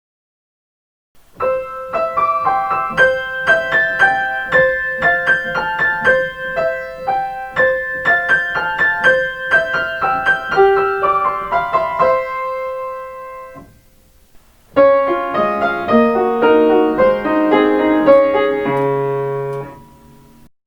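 Piano playing by-ear transcriptions of train onboard chimes: a bright, quick melody with a repeated note, then after a short pause a second, lower chime melody in chords.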